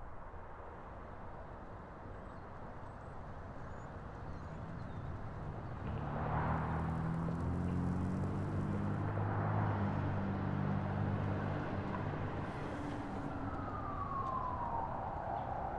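City street ambience with traffic noise. About six seconds in, a low droning engine-like hum rises over it, with two passing hisses. Near the end a single tone glides downward.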